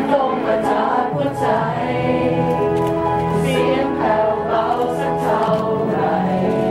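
Live pop song with singing over held backing chords.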